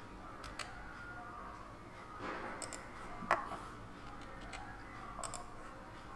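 Faint scattered clicks of a computer mouse and keyboard over low room noise, the sharpest about three seconds in.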